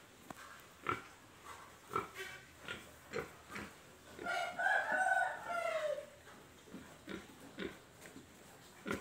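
Domestic pig grunting in a run of short grunts. About four seconds in comes a longer call of nearly two seconds that drops in pitch at its end.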